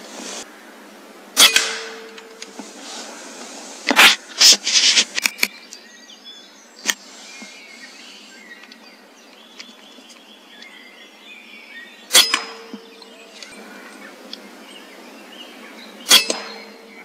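Air rifle shots, each a sharp crack. One comes about a second and a half in, a quick run of them comes around four to five seconds in, and single ones come near twelve and sixteen seconds in. Several are followed by a brief low ring.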